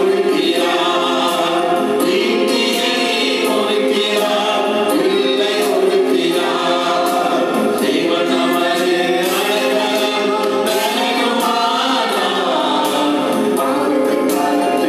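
A worship team of men and women singing a gospel song together into microphones, over an electronic keyboard accompaniment with a steady rhythm.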